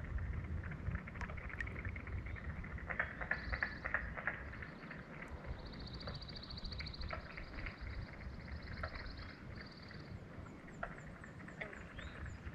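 Small ripples lapping and clicking against an inflatable paddleboard over a low rumble. A high, rapid animal trill starts about three seconds in and stops about ten seconds in.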